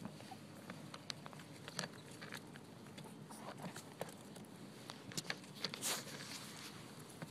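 Puppy gnawing at a leather boot's laces and denim jeans: scattered soft clicks, scrapes and rustles, with a louder rustle about six seconds in.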